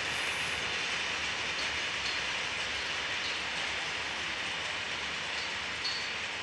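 Freight train's empty open box wagons rolling past: a steady hiss of wheels on rail, with a few faint clicks.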